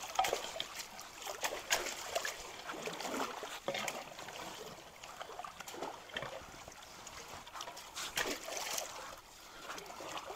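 Creek water splashing and sloshing irregularly as people wade thigh-deep and work debris with a long-handled pole, over a steady trickle of flowing water.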